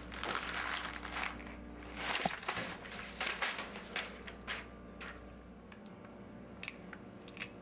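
Rustling and crinkling handling noise in several bursts, followed by a few short, sharp clicks near the end.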